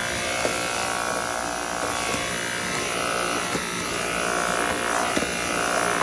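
Dyson V8 cordless stick vacuum running steadily, its motor whining as the motorized brush head is pushed across a tile floor, with a few faint clicks along the way.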